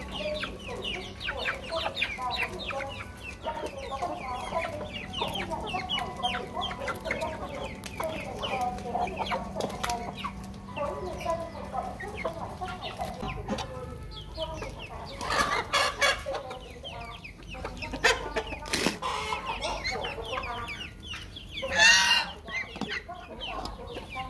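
A flock of chickens clucking continuously as they feed, dense at first and thinning out later, with a few sharp knocks in the second half and one loud bird call near the end.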